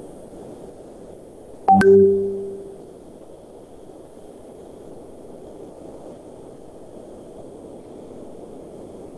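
Google Meet notification chime: a single short bell-like tone about two seconds in that rings out and fades within a second, over a steady faint hiss. It comes as a participant rejoins the call.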